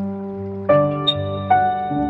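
Background music: slow, sustained chords held over, with new notes struck twice, about two-thirds of a second and a second and a half in.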